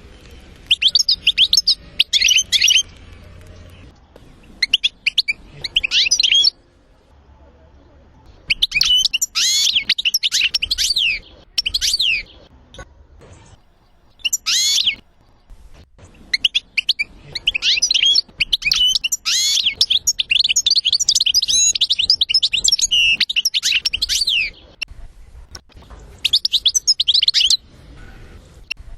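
European goldfinch singing: bursts of fast, liquid twittering phrases broken by short pauses, with one long unbroken phrase in the second half.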